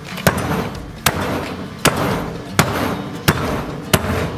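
A heavy Lodge cast-iron Dutch oven pounding a butterflied beef tenderloin under plastic wrap on a wooden board to flatten it: six heavy thuds at an even pace, about three-quarters of a second apart.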